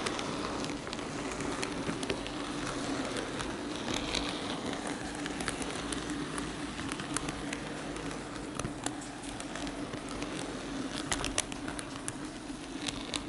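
N-gauge model train running along its track, heard from a camera car riding on it: a steady electric motor hum with irregular clicks as the wheels cross rail joints and turnouts.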